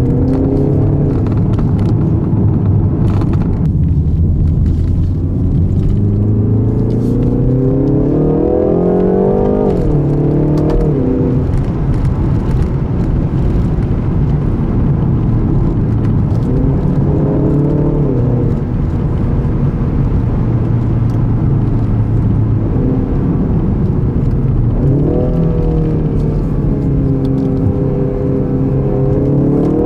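2020 BMW 330i's 2.0-litre turbocharged four-cylinder engine under way, heard from inside the cabin. The engine note climbs under acceleration and falls back several times, with steady cruising and low road rumble in between.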